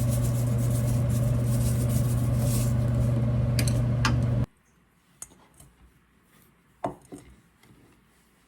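A loud, steady mechanical hum with a low drone stops abruptly about four and a half seconds in. After it come a few faint clinks and taps of dishes and utensils, one sharper clink near the end.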